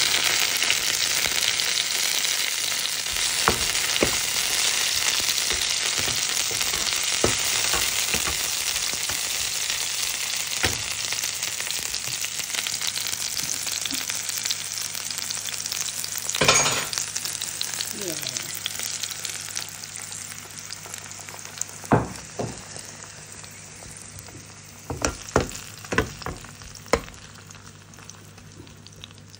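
Sliced onion, garlic and tomato sizzling in hot oil in a frying pan, with a spatula scraping and tapping against the pan. The sizzle dies down over the second half, and near the end a fork knocks sharply against the pan several times.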